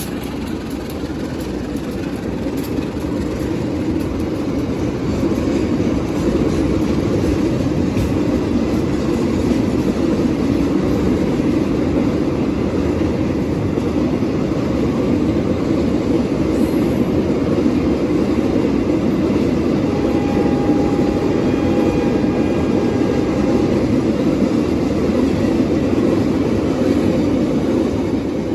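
Empty oil tank wagons of a freight train rolling past close by: a steady rumble of steel wheels on rail that builds over the first few seconds and then holds. About two-thirds of the way through there is a brief thin squeal.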